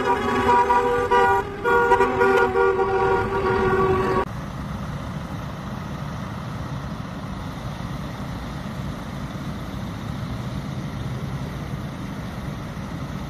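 Vehicle horns sounding together in several steady pitches, with a short break about a second and a half in. About four seconds in, the horns cut off abruptly to a steady, quieter low rumble of vehicle engines and road noise.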